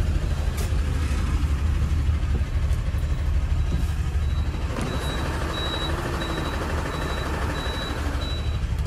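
Diesel engine of a Tata 5530 18-wheel truck running while the truck drives onto the highway, heard from inside the cab: a steady low rumble, with road noise growing louder about five seconds in.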